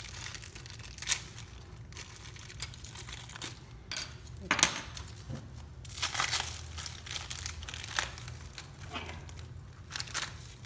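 Clear plastic packaging crinkling and tearing as it is peeled off small camera accessories, in irregular rustles with a few sharp crackles, the loudest about halfway through.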